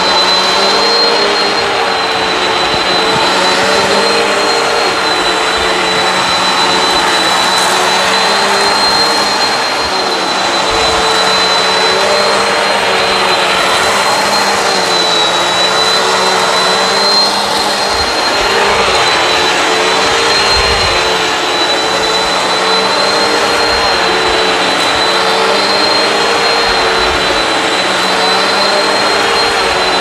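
Bissell CleanView Swivel Pet upright vacuum running steadily on carpet with a high whine, its pitch wavering slightly every second or two as it is pushed and pulled.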